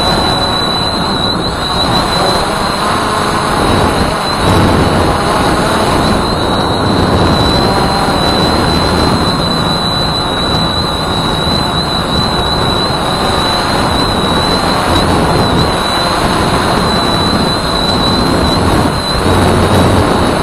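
Walkera Voyager 3 quadcopter in flight, heard through its onboard camera: a steady high motor and propeller whine over a loud rushing noise of prop wash and wind on the microphone.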